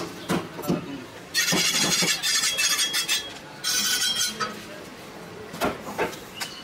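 Large butcher's knife chopping beef on a wooden chopping block: a few sharp knocks near the start and again in the last second. In between, a loud, harsh hiss-like rasp lasts about two seconds, breaks off, and comes back briefly.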